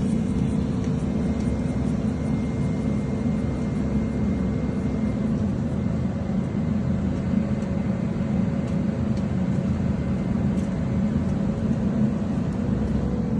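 Steady low machinery rumble on a job site, with a faint steady whine that stops about five seconds in.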